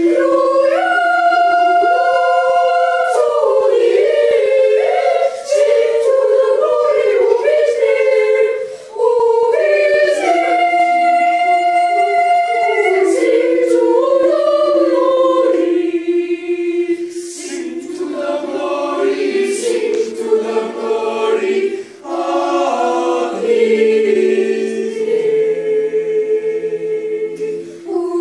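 Boys' voices singing unaccompanied: a high treble melody of long held notes, with a second, lower part singing beneath it in the second half.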